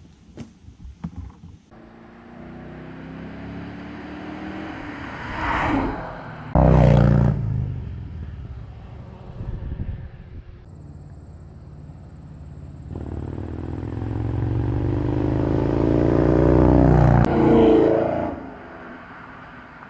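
A 2018 Chevrolet Camaro SS's 6.2-litre V8 drives past twice under acceleration. Each time the engine note rises as the car approaches and drops away after it passes. The first pass, about six and a half seconds in, is the loudest; a few clicks of a cardboard box being handled come before it at the very start.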